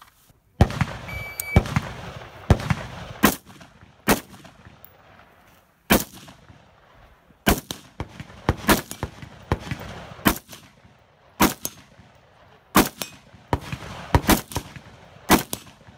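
Semi-automatic AR-style rifle fired one shot at a time, about a dozen sharp shots spaced roughly a second apart with irregular pauses. A short electronic beep, typical of a shot timer's start signal, sounds about a second in.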